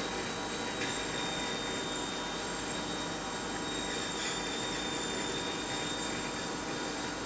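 CNC machine running with a solid carbide drill spindle turning and through-tool coolant spraying over a stainless steel block: a steady hiss of coolant with a thin, steady high whine on top.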